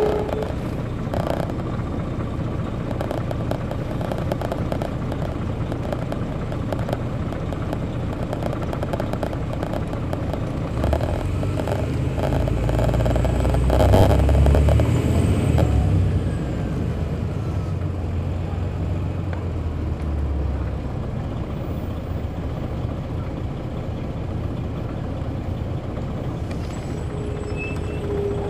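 A 2002 MCI D4000 coach's Detroit Diesel Series 60 engine droning under way, heard from the rear of the bus. The drone swells louder about halfway through and eases back a few seconds later, with short rattles now and then.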